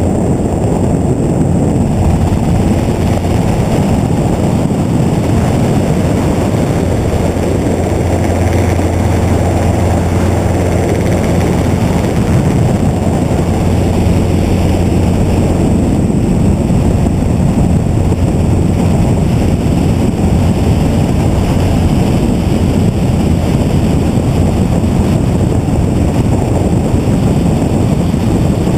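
Helicopter in flight: loud, steady rotor and engine noise with an unbroken low drone.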